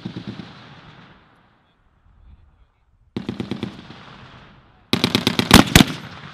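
M2 .50-caliber heavy machine gun firing short bursts of rapid shots: one burst ends just after the start, another comes about three seconds in, and the loudest about five seconds in. Each burst trails off in a rolling echo.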